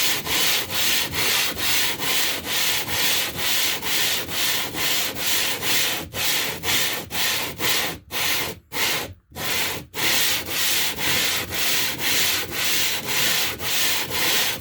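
Limestone being lapped flat with water: quick, even back-and-forth gritty rubbing strokes, about three a second, with a few short breaks in the middle.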